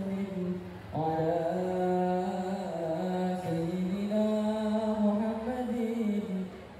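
Many voices chanting an Islamic devotional recitation in unison, in long held notes that step slowly up and down in pitch, with a new phrase starting about a second in.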